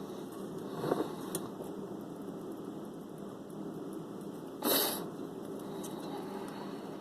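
Handling noise from gluing a new foam surround onto a speaker cone: a steady low hum, a small tap about a second in, and a short rustle near five seconds.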